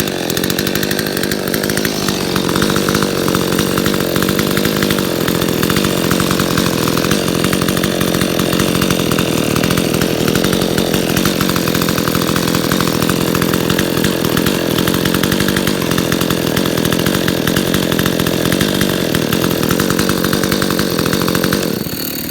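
Stihl 025 two-stroke chainsaw running steadily at one speed, its sound dropping off near the end.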